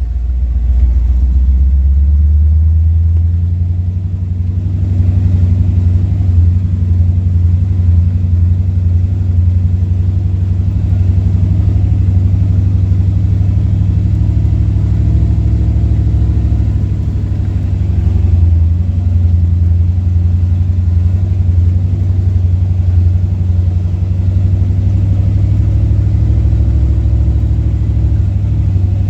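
Willys CJ-2A jeep's four-cylinder flathead engine running steadily under way, with a deep, loud, continuous rumble while driving.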